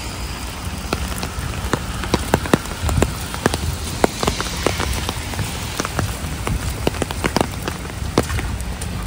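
Rain falling steadily, with heavy drops landing close by as many sharp, irregular ticks, over a low rumble.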